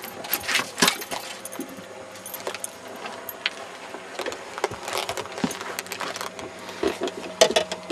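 Scattered clinks and rattles of a landing net and a metal fishing rig as a netted walleye is handled on a boat floor, with a louder cluster of knocks near the end. A steady low hum runs underneath.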